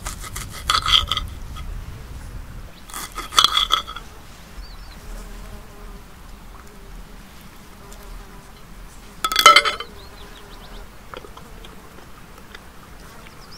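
A steak knife and fork scrape and clink against a ceramic plate in three short bursts, the loudest about nine seconds in. Between the last two bursts an insect buzzes faintly.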